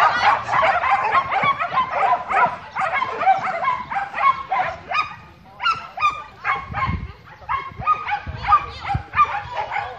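A dog barking non-stop, two or three short, sharp barks a second.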